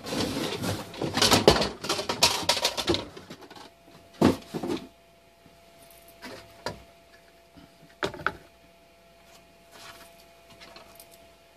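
Cardboard box used as a temporary shelf support scraping and rubbing as it is pulled out from under a 3D-printed plastic shelf for about three seconds, followed by a few scattered light knocks.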